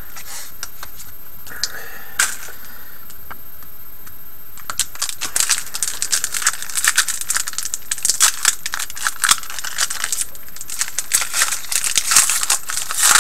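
A Panini Rookie Anthology hockey card pack being torn open, its wrapper crinkling and the cards rustling in the hands. The crackling starts about five seconds in and comes in quick, irregular flurries.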